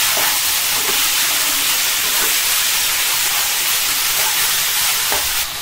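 Chopped vegetables sizzling in hot oil in a non-stick kadhai, a steady hiss, while a spatula stirs them with a few light scrapes against the pan.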